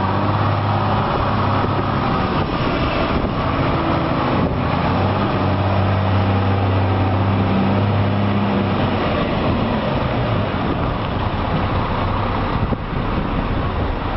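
Heavy truck engine running steadily: a low hum over road and wind noise, with the engine note easing off about nine seconds in.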